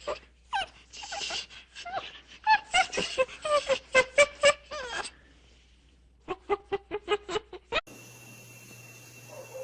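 An animal calling in quick runs of short, sharp calls, pausing, then calling again in a faster run. Near the end it cuts off suddenly to a steady low hum with a thin high tone.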